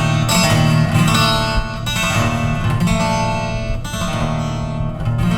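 Six-string acoustic guitar strumming the closing chords of a song, a strum about every second, with a last chord near the end left ringing out and fading.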